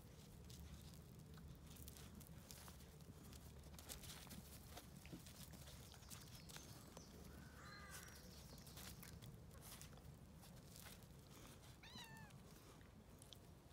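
Near silence: faint scuffling of puppies tussling with a cat on gravel, with two faint, brief high-pitched calls, one about eight seconds in and a short falling series near twelve seconds.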